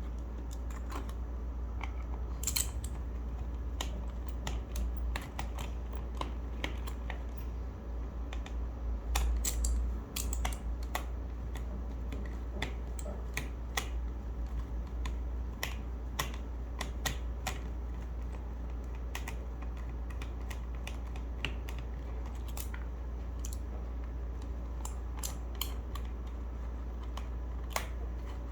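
Keys of a Gamakay K61 mechanical keyboard with clicky Gateron Blue switches clicking as they are pressed, in irregular, scattered single presses rather than fast typing. A steady low hum runs underneath.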